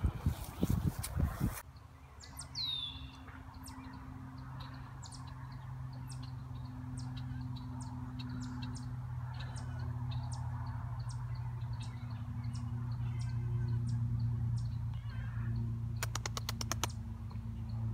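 Wild birds chirping in short, scattered calls over a steady low hum. About the first second and a half is loud rustling, and a quick run of about a dozen clicks comes near the end.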